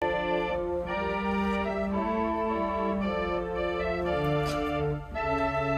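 Church pipe organ playing several voices of held notes that change every half second or so over a lower moving bass line.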